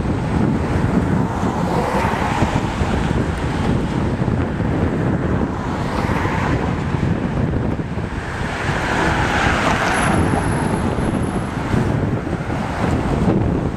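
Wind buffeting the microphone over road traffic, with cars passing in several swells; the loudest pass comes about nine seconds in.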